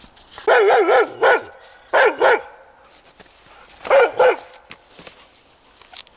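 A dog barking at a person in short runs of two or three barks, with pauses of a second or more between the runs.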